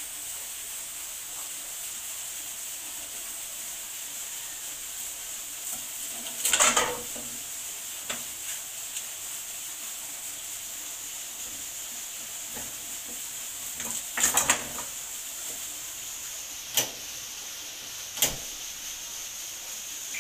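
Ice cubes tipped from a plastic bag clattering into a metal cooking pot, in two loud bursts about a third and two-thirds of the way in. Two sharp clicks follow near the end as the gas stove burner is lit, over a steady hiss.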